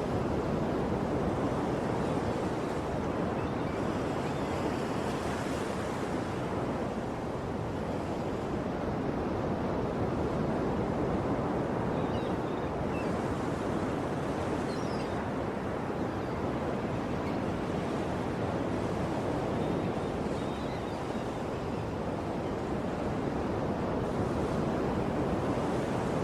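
Ocean surf: waves washing continuously onto a shore in a steady rushing wash that swells and eases gently. A few faint high chirps from forest birds come through about halfway and again later.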